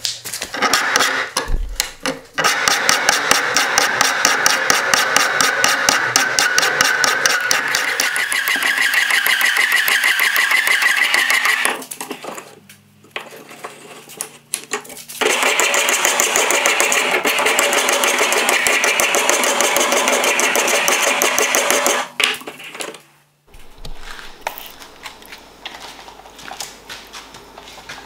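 Hand file rasping over the steel of an old axe head in quick, even strokes, in two long runs with a short pause between.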